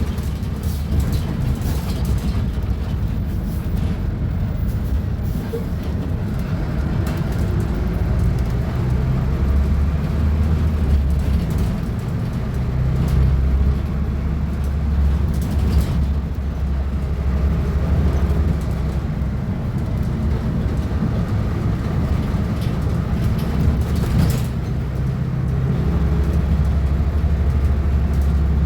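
Diesel engine of a Volksbus 15.190 OD bus running. It makes a steady low drone that swells and eases with the engine's load, with a sharp click about 24 seconds in.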